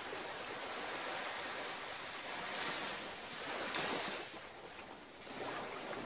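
Small sea waves washing onto the shore, swelling and easing in surges, loudest about three to four seconds in.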